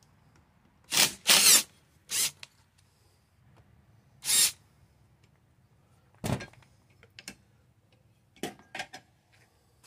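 Cordless impact driver with a square-tip bit spinning out small bolts in short bursts, about four in the first half. Later come a sharp knock and a few light clicks.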